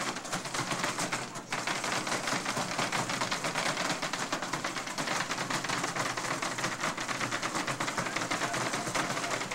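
Small electric combat robots' drive motors and gearboxes running with a fast, steady rattle as the two robots drive and push against each other.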